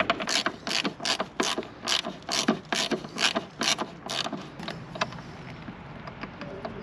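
Small hand ratchet clicking as its pawl slips on the back-swings while it drives a bit-socket bolt. The clicks come in quick succession and die out about four and a half seconds in.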